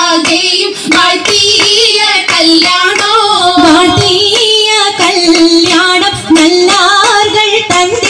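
Dance song playing: a female voice singing a melody over a backing with a regular beat.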